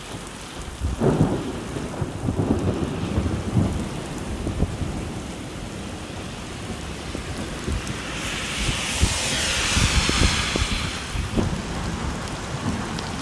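Heavy rain pouring down onto an asphalt road, a dense steady hiss over a deep, uneven rumble. A louder hiss swells and fades about eight seconds in.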